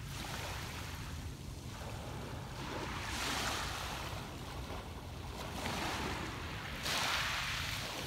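Small waves breaking and washing up on a pebble beach, a steady wash of surf that swells twice, about three seconds in and again near the end.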